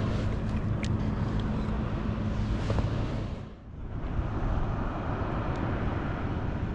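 Steady rumbling hiss of wind and sea swell on the shore, with a low steady hum in the first half that stops about three seconds in, where the sound dips briefly before carrying on.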